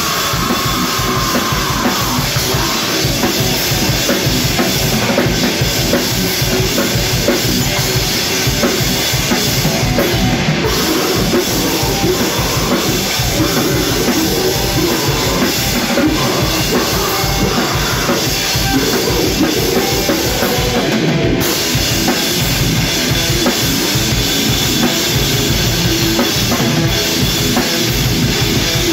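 Live heavy metal band playing loud: electric guitar over a drum kit with rapid, steady bass-drum hits.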